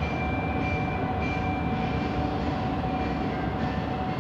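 Siemens Inspiro metro train running, heard from inside the carriage: a steady rumble with a steady whine, and a higher tone that comes and goes.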